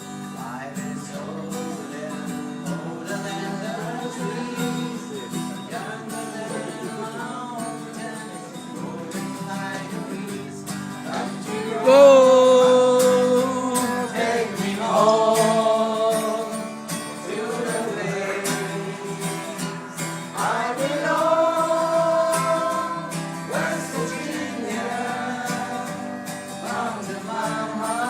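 Acoustic guitar music with singing. A stronger voice with long held notes comes in about twelve seconds in.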